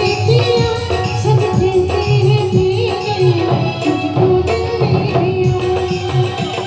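Live Indian devotional band music played through a PA system: a melody line over a steady, rhythmic tabla-like hand-drum beat.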